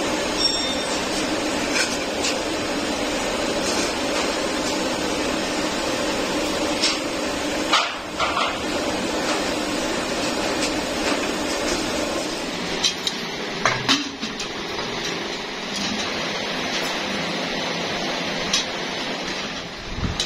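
Steady hum of workshop machinery with scattered sharp metallic clinks and knocks, from black-painted sheet-metal air filter canisters being hung on the hooks of a chain-driven conveyor.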